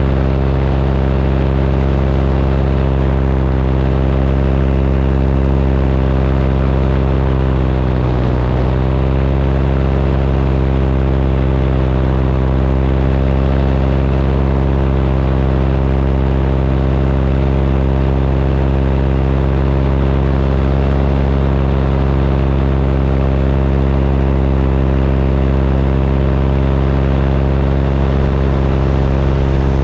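Paramotor engine and propeller running steadily at cruise throttle. About eight seconds in, the pitch briefly drops and comes back up as the throttle is eased and reopened.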